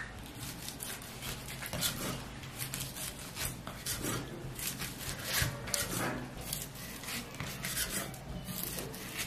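Chinese cleaver slicing raw fish fillet at a slant on a wooden chopping block: a string of short, irregular scraping strokes as the blade draws through the flesh and across the wood.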